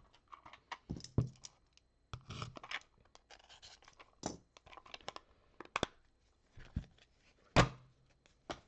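A baseball card pack's wrapper torn open with crinkling, and the stack of cards handled in the hand: irregular rustles and small card clicks, with one sharper snap near the end.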